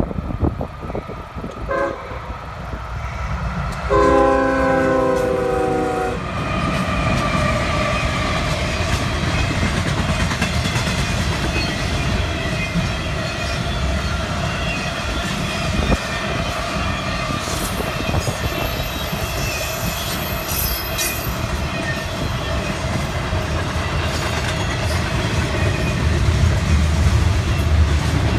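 CSX intermodal freight train: the diesel locomotive's horn gives a brief tap, then one blast of about two seconds, and the train rolls past with a steady rumble and clatter of wheels on the rails.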